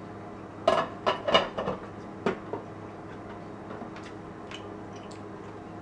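Metal fork and knife clinking on a crock pot and its lid, a scattering of light clicks that thins out after the first couple of seconds, over a steady low hum.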